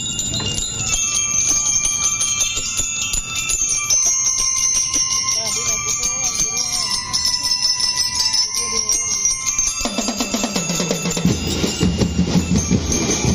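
Bell lyres of a drum and lyre band playing a ringing melody on their own; about ten seconds in, the drums come in with a steady beat.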